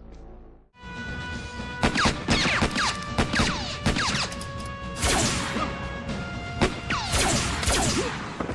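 Film soundtrack: after a brief hush, a rapid string of sharp gunshot-like hits begins about a second in, several trailing off in quick falling whistles like ricochets. They come from a cowboy puppet firing its revolvers, over music with sustained notes.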